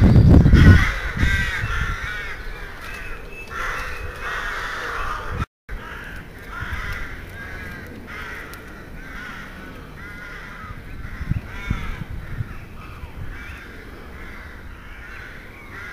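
A flock of crows cawing over one another, many short harsh caws overlapping throughout. A loud low rumble fills the first second, and the sound cuts out completely for a moment about five and a half seconds in.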